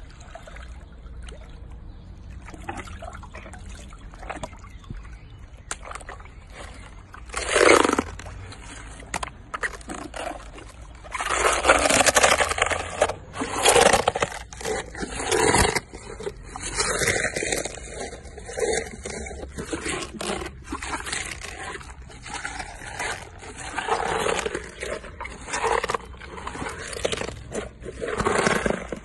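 Hippopotamus chewing lettuce and greens, with repeated wet crunches and scrapes about once a second, after a loud single burst about eight seconds in.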